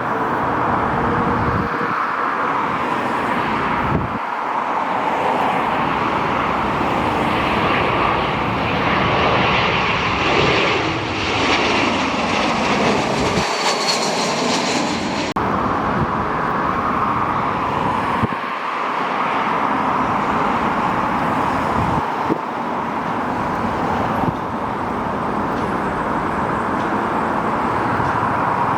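Jet airliner's engines passing by, a steady rush that swells about a third of the way in, with a falling tone as it goes over, then eases back to a steady background roar.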